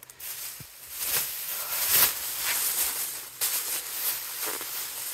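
Footsteps crunching as someone walks, with rustling in between, heaviest around two seconds in.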